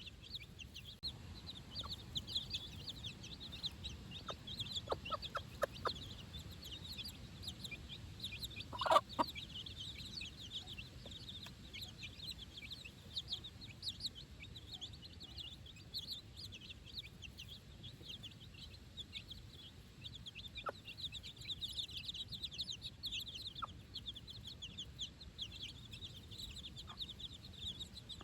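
A brood of four-day-old chicks peeping continuously in a dense, high-pitched chorus. A mother hen clucks now and then underneath it, in a short run about five seconds in and loudest about nine seconds in.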